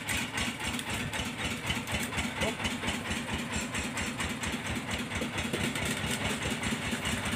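An engine on a fishing boat idling steadily with a fast, even beat.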